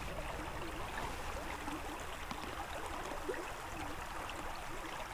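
Shallow brook running over rocks: a steady, low rush of flowing water.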